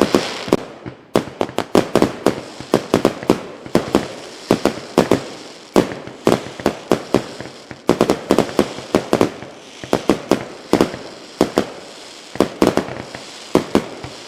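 A rapid, irregular string of sharp cracks and pops, several a second and often in quick clusters, keeping on throughout.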